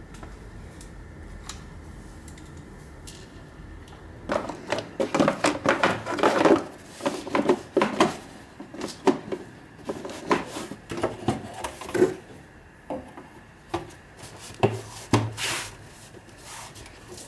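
Hands handling and pressing plastic engine-bay covers and intake parts into place. After a few quiet seconds comes a busy run of plastic knocks, clicks and rubbing, which thins to a few scattered knocks near the end.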